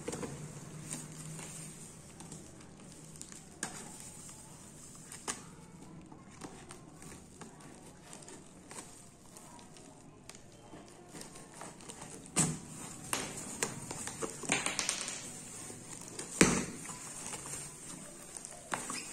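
Crinkling plastic gloves and rustling cardboard as a box cutter slits the packing tape on a cardboard box and the flaps are pulled open. Scattered small clicks and scrapes, with two sharp knocks in the second half.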